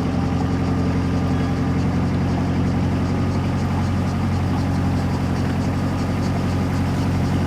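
An engine running at a steady, unchanging speed: a constant low hum.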